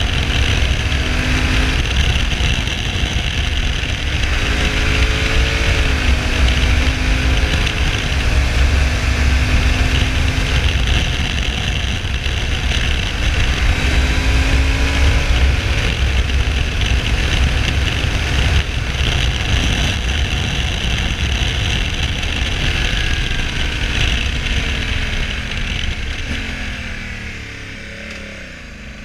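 Honda Africa Twin 1100's parallel-twin engine pulling on the road, its note rising through the revs and dropping at gear changes, under heavy wind rush over the microphone. Over the last few seconds the engine note falls and quietens as the bike slows.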